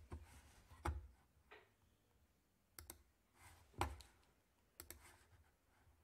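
A handful of faint clicks from a computer mouse, spaced about a second apart, with near silence between them.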